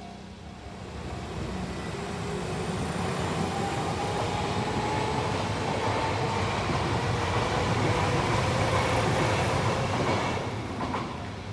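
Kintetsu Minami-Osaka Line electric train passing over a level crossing. The rumble builds over the first couple of seconds and holds with a slowly rising whine, then drops away sharply about ten seconds in.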